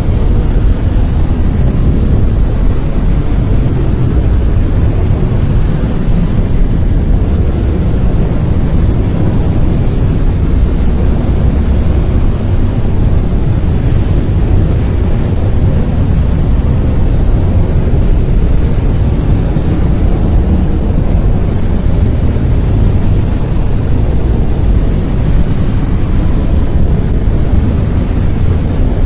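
Brown noise: a steady, deep rumbling hiss with most of its energy in the lows, unchanging throughout.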